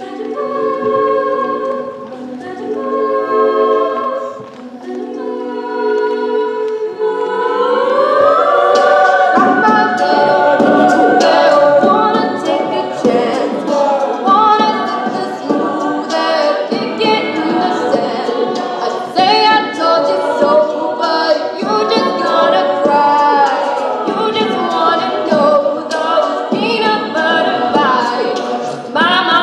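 Mixed-voice a cappella group singing: held chords for the first several seconds, then a rising swell about seven seconds in into fuller, louder singing.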